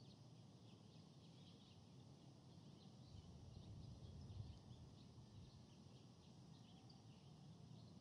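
Faint, quiet forest ambience: scattered short, high bird chirps over a low, distant rumble.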